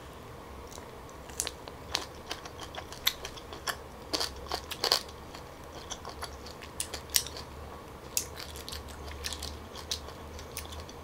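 Close crunching and crackling of a steamed tiger prawn's shell: irregular sharp crunches as the prawn is bitten and chewed, then sparser cracks as the shell is peeled off by hand in the second half.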